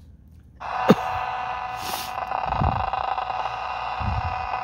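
Portable analog TV's speaker cutting in about half a second in with a steady buzz of many fixed tones and hiss: the audio of a weak, distant analog TV signal being tuned in. There is a sharp pop about a second in and a few low thumps.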